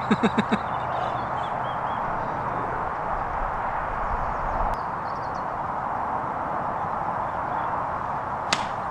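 Steady outdoor background noise, then, near the end, the single sharp click of a golf club striking the ball.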